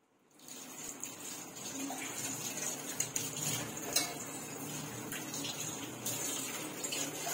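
Milk boiling and frothing in an aluminium pot, being boiled down for payesh before the rice goes in: a steady bubbling hiss, with a few clinks of a metal ladle against the pot, the sharpest about four seconds in.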